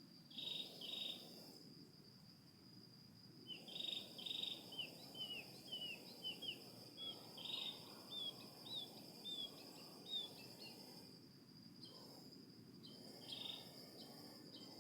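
Insects, likely crickets, keep up a steady high-pitched drone. A bird calls over it in short notes, then gives a rapid run of small chirps about four to ten seconds in.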